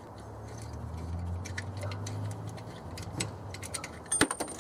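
Scattered metallic clicks and taps of a wrench working the alternator's tensioner bolt, with a louder cluster of clicks near the end. A low hum sounds through the first half and fades out.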